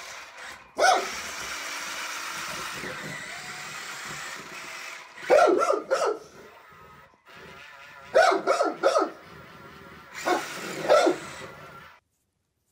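Large dog barking in clusters of loud barks: one about a second in, a quick run of barks about five seconds in, another run about eight seconds in, and two more near the end. Between the barks there is a steady whir of a small electric motor.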